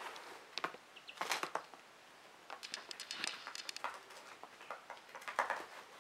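A young quail moving about on a hard floor: light taps and pattering clicks in a few short clusters.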